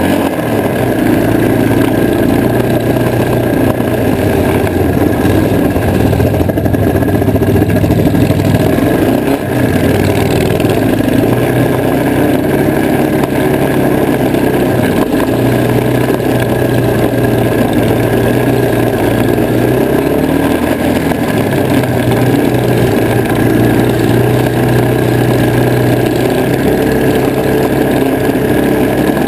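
Engine of a vintage 1970 Hustler 6x6 ATV running steadily, its pitch stepping up and down several times as the throttle changes.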